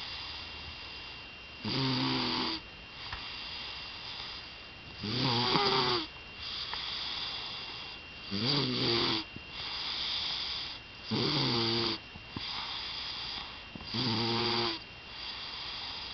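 Steady rhythmic snoring: five loud rattling snores, each under a second long, come about every three seconds, with a quieter breathy sound between them.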